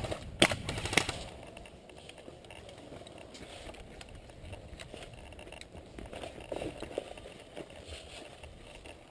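Footsteps crunching and shuffling through dry fallen leaves, with gear rustling, after two sharp cracks in the first second.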